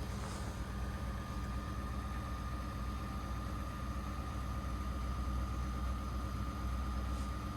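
2021 Ford F-150 PowerBoost's hybrid V6 running at idle: a steady low hum, with a thin steady whine that comes in right at the start and holds.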